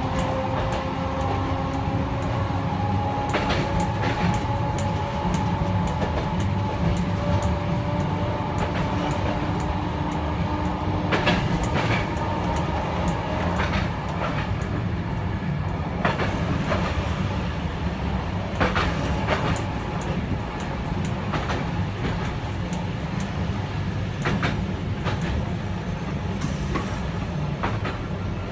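Toyohashi Railroad Mo 3501 tram running on street track, heard from inside the driver's cab: a steady low rumble with a faint whine that rises slowly in pitch over the first several seconds as it picks up speed. Its wheels click over rail joints at irregular intervals, a few seconds apart.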